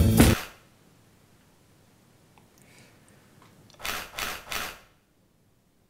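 The last note of a theme tune cuts off, then a camera shutter fires three times in quick succession, with flash, about a third of a second apart.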